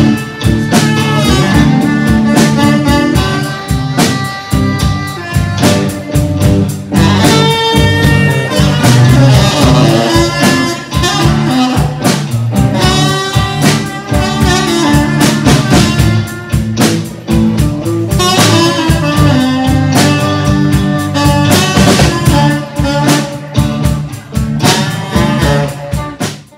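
Saxophone playing a bluesy melody over a steady low accompaniment, fading out at the very end.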